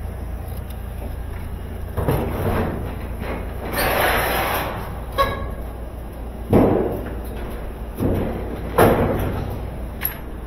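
Top-load washing machine cabinet knocking and thudding as it is tipped and wheeled on a hand truck over a concrete floor: several sharp knocks, with a longer scraping rattle about four seconds in.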